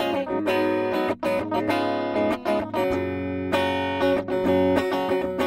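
Schecter V-1 Hellraiser FR electric guitar played with both EMG pickups on (middle switch position), a clean tone: a run of strummed and picked chords, each left to ring into the next.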